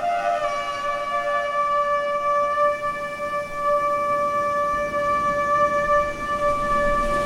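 A shofar sounding one long held blast, its pitch dropping slightly just after the start.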